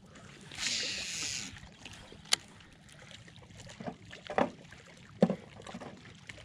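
A cast with a Lew's baitcasting reel: a hissing whir of line paying off the spinning spool for about a second. About two seconds in comes a single sharp click, then a few soft knocks as the jerkbait is twitched back.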